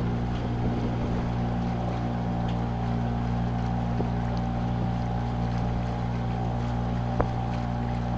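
Motorboat engine running steadily at cruising speed, a constant low drone, with a single short click about seven seconds in.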